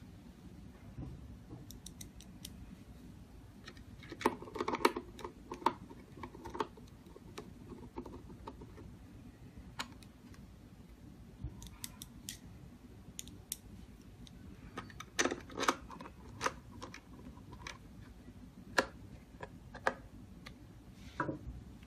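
Irregular clicks, taps and light knocks of hard lock parts being handled and fitted as the back plate of a keypad door lock is mounted, coming in short clusters with pauses between.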